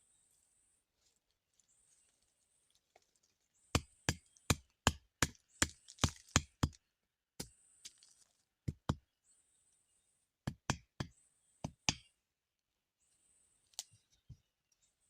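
A run of sharp knocks or chops, about three a second for some three seconds, then strikes in pairs spaced a second or so apart, fading to two faint knocks near the end.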